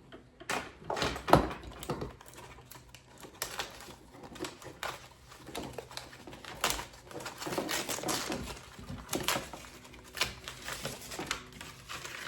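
Irregular clicks, taps and knocks of hard plastic and metal parts being handled as a string trimmer's shaft is fitted into its joint, with one louder knock about a second in.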